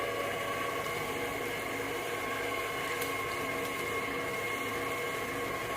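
Electric cake mixer running steadily at constant speed, its motor giving a steady whine over a hiss.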